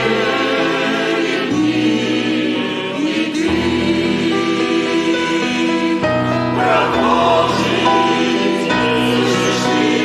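Choir singing a Christian hymn, with sustained notes that change every second or two over a low held bass line.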